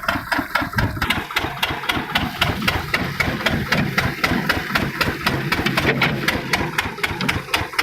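Engine powering a soil washing machine, running steadily with a quick, even knocking beat.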